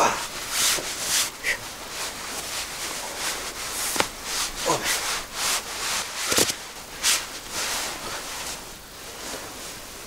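Nylon hammock and sleeping bag rustling and swishing as a person climbs in and settles, in a series of irregular rubs, with a couple of sharp clicks about four and six and a half seconds in.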